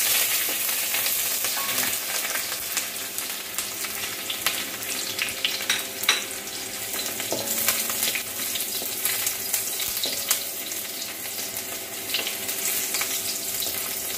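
Chopped garlic and green chillies sizzling in hot oil in a metal kadai over a high flame, stirred with a spatula that scrapes and now and then clicks sharply against the pan.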